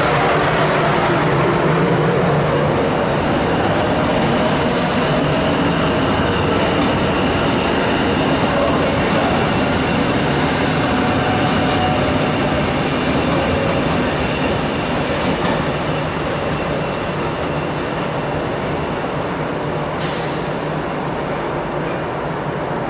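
Double-deck electric regional trains rolling through the station: a steady rumble of wheels on rail with thin high squealing tones from the wheels. A short sharp hiss comes about twenty seconds in.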